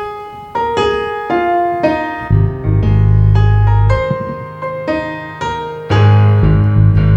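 Electric piano playing a song intro, chords struck in a steady rhythm, with deep bass notes coming in about two seconds in and again near the end.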